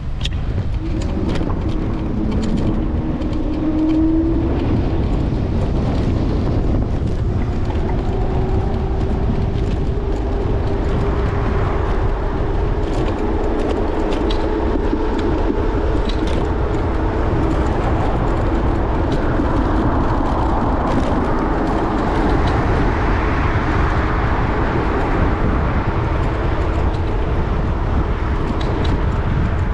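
Riding noise from an electric scooter in city traffic: steady wind and road rumble, with scattered rattles and clicks and the sound of cars. A humming tone rises in pitch in the first few seconds, then holds steady for a long stretch.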